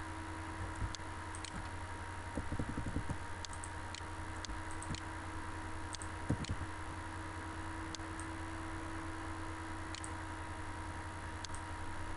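Scattered computer mouse clicks, about a dozen, over a steady electrical hum and background hiss, with two brief spells of low thudding about two and a half and six and a half seconds in.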